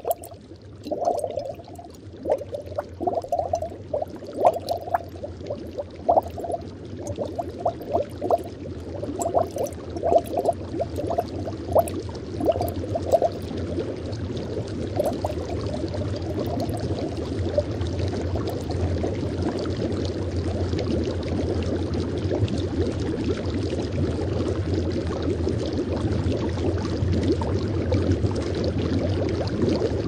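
Water bubbling and dripping in separate gurgling plops. About halfway through it blends into the steady rush of a flowing stream.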